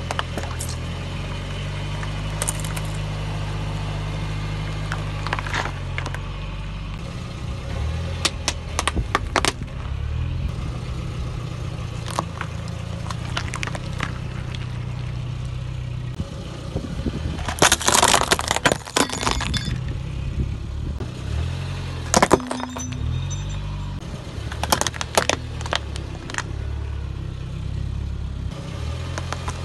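A car engine running slowly as its tyre rolls over and crushes objects: plastic sauce bottles and a corn cob give a series of sharp cracks and crunches. The loudest burst of crackling comes about two-thirds of the way through.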